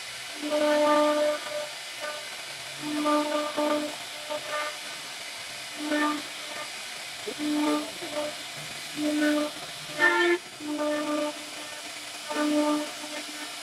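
CNC router carving wood: a steady hiss from the spindle and cutter, with a whining tone that sounds in short spells, about one every second or so, as the machine moves along the carving path.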